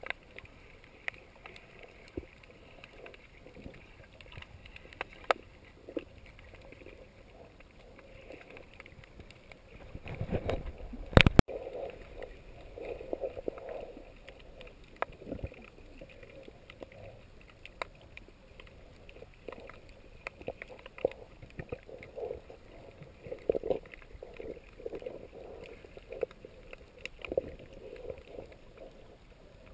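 Muffled underwater sound picked up by a submerged camera: scattered sharp clicks and recurring bursts of water noise, with one loud sharp knock about eleven seconds in.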